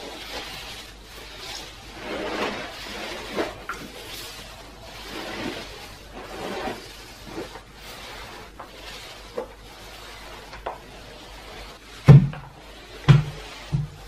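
A spin mop's microfibre head swishing in strokes over a laminate floor. Near the end come three sharp knocks, the loudest sounds.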